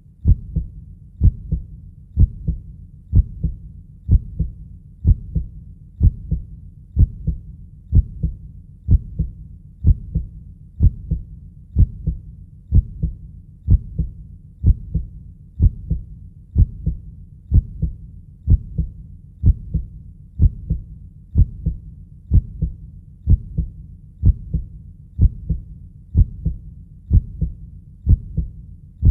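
Steady, slow heartbeat: each beat a low double thud, lub-dub, repeating evenly about once a second.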